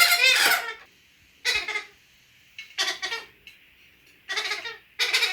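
Pionus parrot giving five short calls, about one a second, with brief silences between them.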